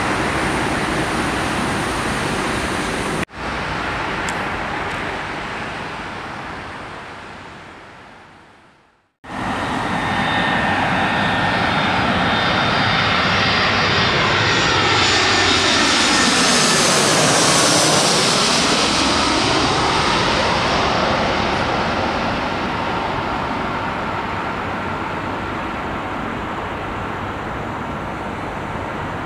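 Airliner engine noise from a jet on the runway, cut short and fading out. After a brief gap, a twin-engine jet airliner on final approach flies low overhead. Its engine noise swells to a peak about halfway through, with a sweeping, phasing change in pitch as it passes, then slowly fades.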